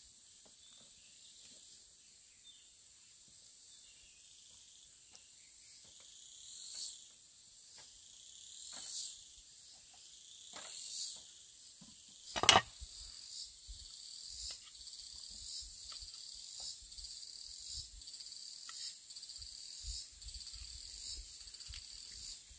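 Forest insects calling high-pitched, in swells about once a second over a steady high whine. A single sharp knock sounds about halfway through.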